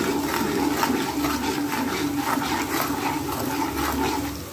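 Chopped onions and red chillies sizzling in hot oil in an aluminium pot, stirred and scraped with a metal spoon in quick, repeated strokes. The sizzle rises sharply at the start as the stirring begins.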